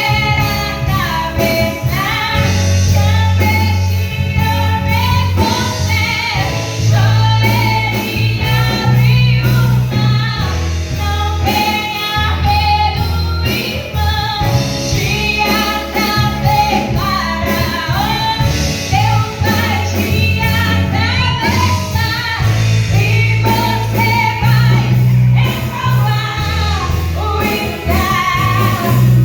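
A woman singing a Portuguese gospel song over instrumental accompaniment with a changing bass line and a steady beat.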